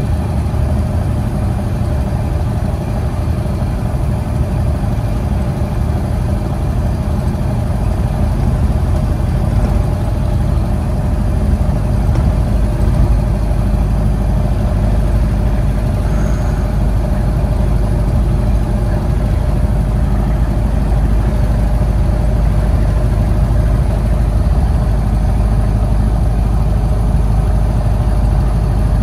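1931 Ford Model A's four-cylinder engine running steadily while driving, with road noise, heard from inside the cabin.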